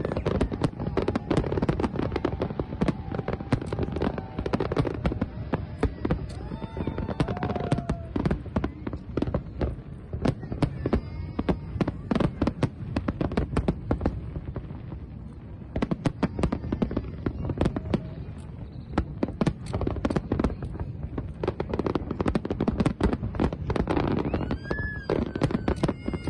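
Fireworks display: aerial shells and fountains going off in a dense, unbroken barrage of bangs and crackles.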